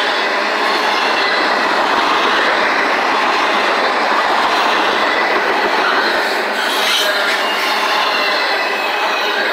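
Double-stack intermodal container well cars of a freight train rolling past close by: a steady, loud noise of steel wheels running on the rails.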